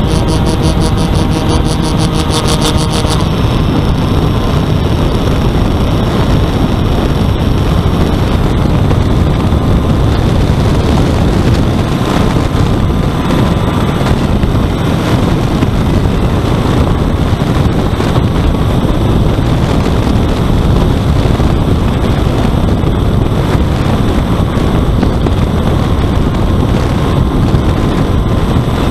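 Steady rush of air over the onboard camera's microphone on an RC foam plane in flight, mixed with the drone of its twin electric motors and propellers. For about the first three seconds a whine of several steady tones rides on top, then fades.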